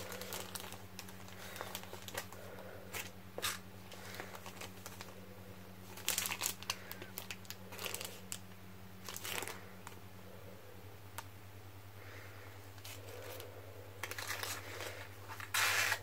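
Paper craft items and a clear plastic packet being handled and shuffled by hand, crinkling and rustling in irregular bursts, loudest about six, nine and fifteen and a half seconds in. A steady low hum runs underneath.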